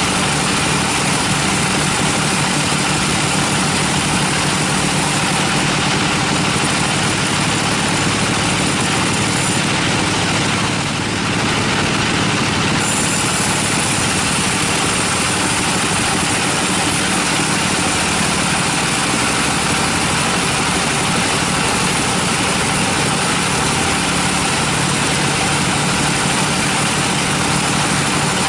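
Band sawmill running, its blade ripping lengthwise through a teak log: a loud, steady mechanical drone with the saw in the wood, dipping slightly for a moment about eleven seconds in.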